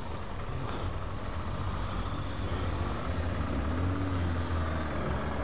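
Motorcycle engine running at low revs, then pulling away, its note rising and falling briefly near the end.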